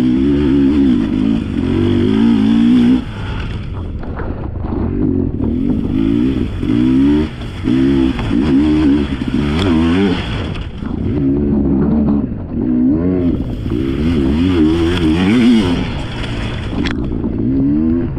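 Sherco enduro dirt bike engine under hard riding, revving up and falling back over and over as the throttle is worked on a muddy trail, with a sharp knock near the end.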